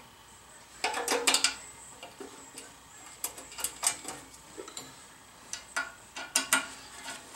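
Scattered small metallic clicks and clinks of a hand tool and fasteners against the lathe's sheet-metal splash guard and headstock as the guard is fitted, some ringing briefly.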